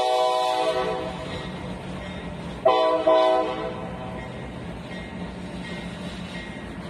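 Freight train locomotive horn: a long chord cuts off under a second in, and a short double blast follows about three seconds in. Freight cars then rumble past slowly over the crossing.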